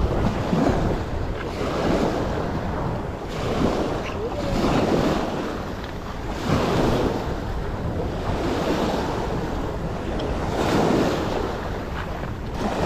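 Small waves breaking and washing over a pebble beach, swelling and easing every couple of seconds, with wind buffeting the microphone.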